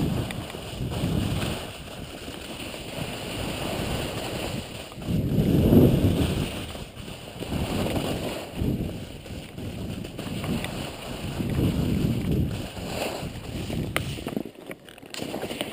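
Skis scraping and hissing over snow while wind buffets an action camera's microphone, the noise swelling and fading every few seconds as the skier turns.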